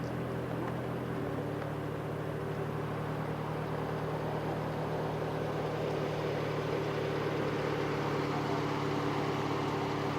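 Car engine running steadily with tyre and road noise, its note changing about a second in.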